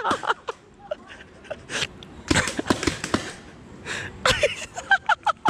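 Paintball markers firing: a quick run of sharp pops about halfway through. Short shouted calls come near the end.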